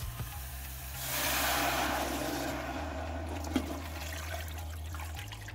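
Water poured from a glass jug into a large stainless-steel stockpot, a rushing splash that starts about a second in and then thins to a lighter trickle as the pot fills to cover the meat.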